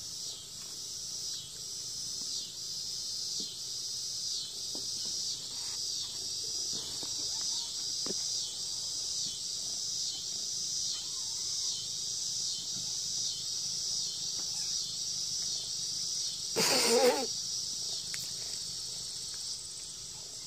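Crickets chirping steadily in a high, even pulse of about two chirps a second. Near the end comes one short, louder squeal.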